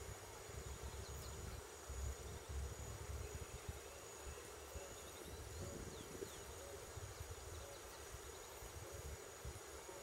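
Faint outdoor ambience: a steady high-pitched insect drone over an uneven low rumble.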